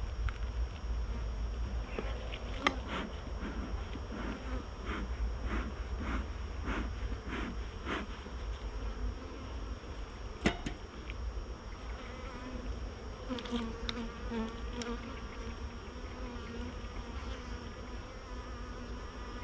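Honeybees buzzing around an open hive, with one bee buzzing close by for a couple of seconds past the middle. A run of short strokes comes early on, and two sharp knocks, one about three seconds in and one about halfway.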